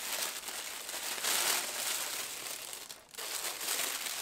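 Tissue paper rustling and crinkling as it is lifted out of a gift box and unfolded by hand, with a short break about three seconds in.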